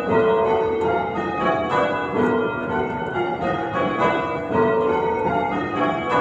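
Church bells being change-rung, one bell striking after another in quick succession so that their ringing tones overlap.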